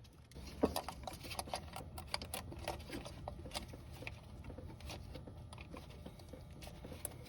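Faint, scattered light clicks and taps of hand tools and loose fasteners being handled in the engine bay, a few sharper ones now and then.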